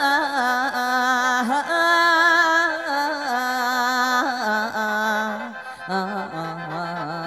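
Mor lam music: a long, drawn-out sung melisma with a wavering vibrato over khaen mouth-organ accompaniment, its held notes stepping lower in pitch as it goes.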